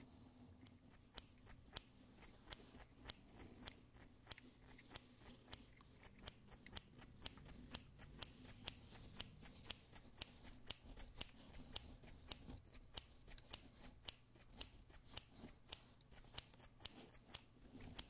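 Scissors snipping through cardboard tube: a long run of short, sharp snips, about one or two a second at first and quickening to around three a second in the second half.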